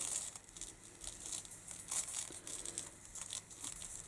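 Faint crinkly rustling of paper and card being handled, with scattered light ticks.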